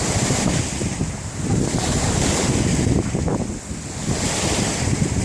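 Wind buffeting the microphone: a loud rushing noise that swells and eases, dipping briefly past the middle.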